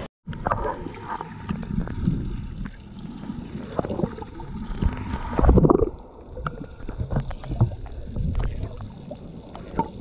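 Muffled underwater sound from a camera submerged in shallow sea water: sloshing and gurgling with scattered clicks and knocks, and a louder rushing surge a little past halfway.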